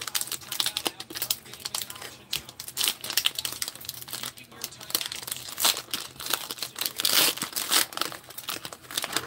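Clear plastic cello wrapper of a trading-card pack crinkling and tearing as it is ripped open by hand: a dense, irregular run of crackles and rips.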